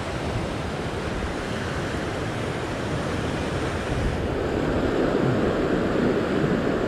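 Ocean surf washing over a coastal rock ledge, a steady rushing wash that grows louder in the second half as a bigger set of waves comes in.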